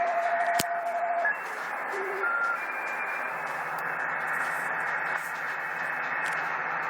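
Shortwave amateur radio receiver putting out band noise between transmissions: a steady hiss through the radio's narrow audio range. A steady whistle holds for the first second or so, with a sharp click near the start. A few brief whistles at different pitches follow about two seconds in.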